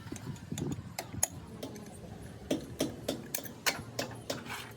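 Irregular sharp clicks and light taps, several a second, loudest a little over a second in and around three and a half seconds in: hand tools and parts clinking against metal during hub repair work.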